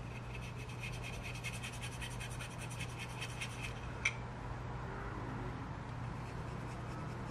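Flat paintbrush bristles scrubbing quickly back and forth over a small plastic model part, a fast run of dry scratchy strokes, then one sharp click about four seconds in as the part is shifted on the cutting mat.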